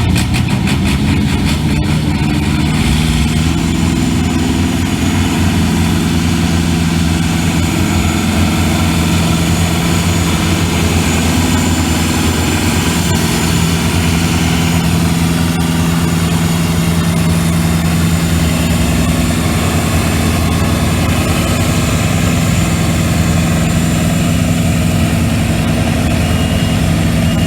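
Tractor engine running steadily, its pitch shifting slightly in the first few seconds and then holding.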